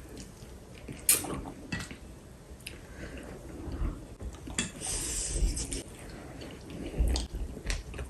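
Eating with chopsticks: a few sharp clicks of chopsticks against bowls, with soft chewing and the wet squish of pounded yam and pepper soup.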